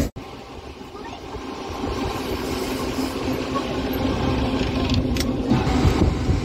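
Passenger carriage of the 1959 '45.000' series running along the line, heard from inside a compartment: a steady rumble of wheels on rails that grows louder over the first couple of seconds, with one brief sharp click about five seconds in.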